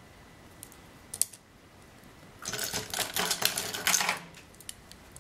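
Plastic gel pens with large faceted gem tops clicking and rattling against one another as they are handled and laid down on a table. A couple of light clicks come first, then a rapid clatter lasting about two seconds.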